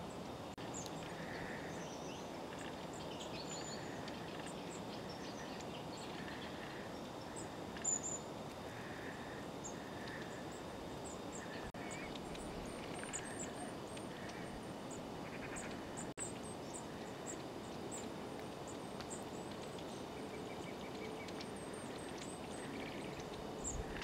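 A flock of long-tailed tits calling: many short, thin, very high contact notes scattered through, with a few softer, lower trilled notes among them, over a steady low background rumble.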